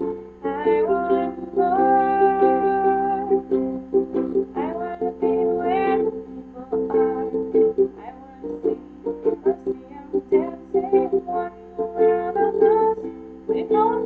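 A Makala ukulele strummed in chords, with a young woman singing along.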